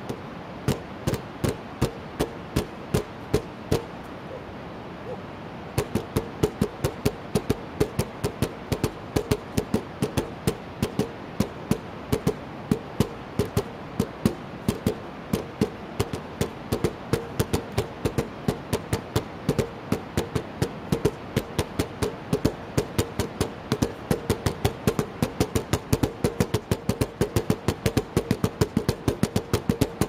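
Nunchaku drumming: drums struck with a pair of nunchaku in a steady rhythm. A few slow single beats, a short pause about five seconds in, then a fast even beat of about three to four strikes a second that gets denser near the end.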